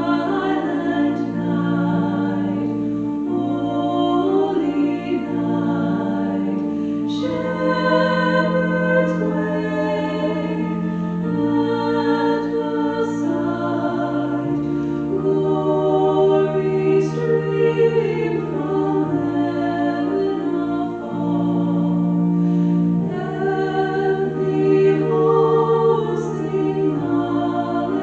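A choir sings a hymn in sustained chords over an organ, with the bass and harmony changing every few seconds.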